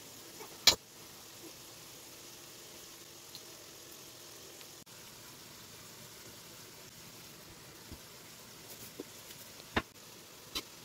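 Quiet handling while filling and folding warqa pastry with a metal spoon: one sharp click about a second in and a few light clicks near the end, over a faint steady hiss.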